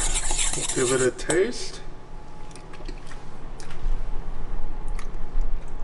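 A spoon stirring and scraping a thin sauce in a small stainless steel bowl for about the first second and a half, with a short burst of voice over it. After that there are only a few faint, light clicks.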